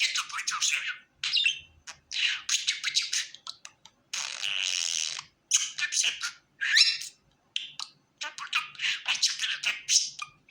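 Pet budgerigar chattering and warbling in quick bursts of chirps and squawks with short pauses between them. About four seconds in there is a longer, steady, scratchy sound.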